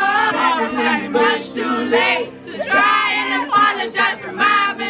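A crowd singing along together over music.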